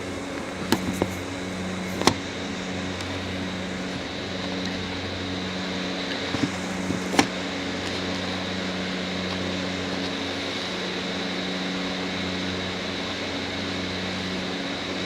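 A steady mechanical hum with a few sharp clicks, the clearest about two seconds and seven seconds in.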